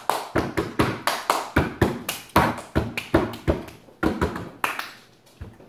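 A rapid run of sharp hand slaps or taps, about three or four a second, fading out about a second before the end.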